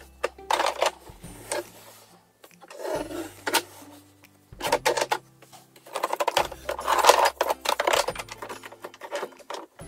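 Makeup tubes, bottles and compacts clattering and clinking against each other as they are shuffled around inside a furniture drawer: a busy run of quick knocks and clicks in bunches, over a steady background-music bass line.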